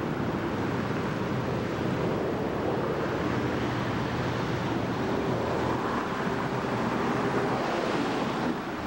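Steady rushing outdoor noise of wind on the camcorder microphone, with passing street traffic underneath.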